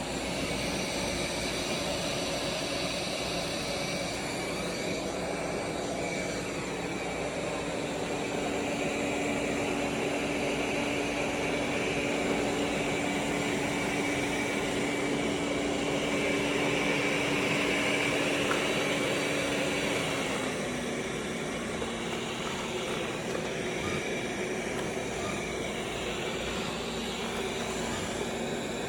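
Roborock S8 robot vacuum running, its suction fan and brushes making a steady whirring noise with a held whine. About 20 seconds in the whine steps down slightly in pitch.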